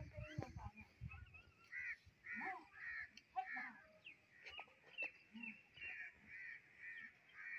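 Crows cawing again and again, a run of short, harsh calls about two a second.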